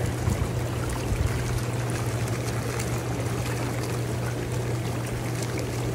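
Strong Spas hot tub with its jets running: the jet pump hums steadily under the sound of churning, splashing water.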